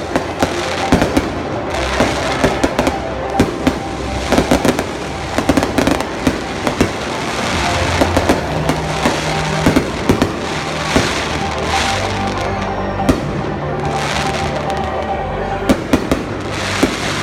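Fireworks display: a rapid, continuous string of bangs and crackles, with music playing underneath.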